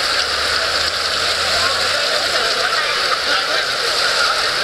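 Steady hiss of water running over the paving of a shallow walk-through water feature, with crowd chatter faintly underneath.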